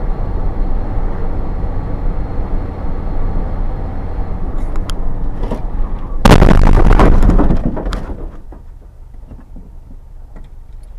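Steady road and engine rumble from a moving vehicle. About six seconds in, a sudden, very loud crash of a car collision lasts about a second and a half. A low rumble remains afterwards.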